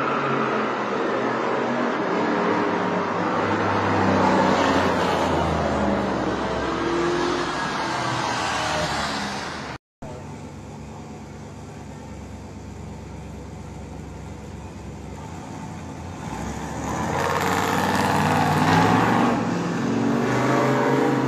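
Engines of American muscle cars, a black Dodge Charger and a silver Chevrolet Nova, revving and accelerating along a street, their pitch rising as they pick up speed. A cut about ten seconds in drops the sound to nothing for a moment. It comes back quieter and swells again near the end as the cars accelerate past.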